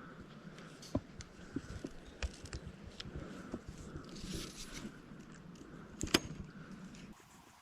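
Close handling noises: scattered clicks, scrapes and rustling near the microphone, with a short hiss about four seconds in and the sharpest click just after six seconds. The background drops away abruptly near the end.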